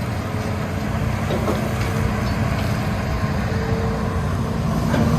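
Hitachi Zaxis 210 excavator's diesel engine running steadily, with a faint whine that comes and goes.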